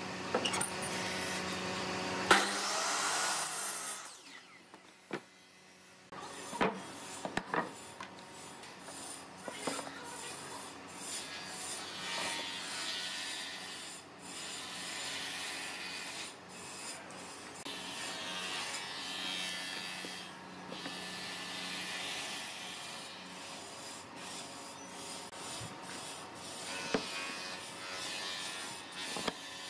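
A miter saw's motor runs, then its blade cuts into a wooden board with a sharp crack about two seconds in, followed by a couple of seconds of loud cutting noise. After a short lull, a long run of clicks and scraping follows as the board is handled, measured with a tape measure and marked with a pencil against a metal speed square.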